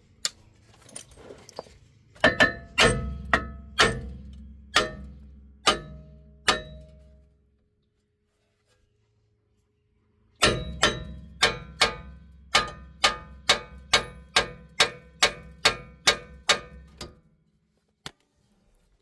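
Hammer blows on a rusted brake rotor seized to the hub, each strike ringing metallically. They come about two a second in two runs, with a pause of a few seconds between them.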